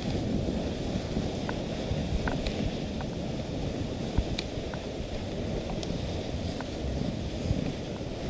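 Dog sled gliding over snow behind its team: a steady rushing noise from the runners and wind on the microphone, with a few faint ticks scattered through it.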